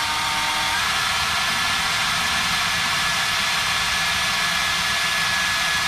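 Cordless drill running steadily under load as a quarter-inch titanium-coated DeWalt bit bores into quarter-inch-thick metal, the bit biting into the steel. The motor's whine steps up in pitch a little under a second in and then holds steady.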